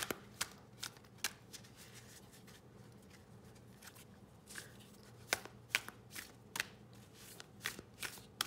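Oracle cards being shuffled by hand, overhand style, making irregular sharp taps and slaps as packets of cards drop from one hand onto the other. The taps come in clusters, with a quieter stretch in the middle.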